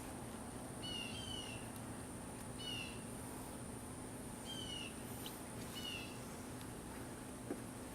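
A bird calling again and again outdoors, short, sharply falling calls often given in pairs. They ride over a steady low hum of honeybees around an open hive and a thin, steady high whine. A single sharp click comes near the end.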